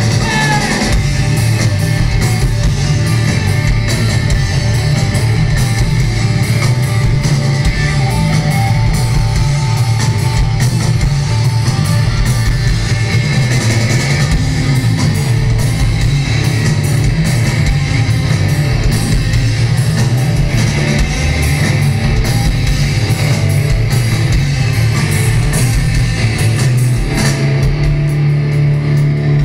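Live post-hardcore rock band playing loud: electric guitar over a drum kit, heard from among the audience in a club.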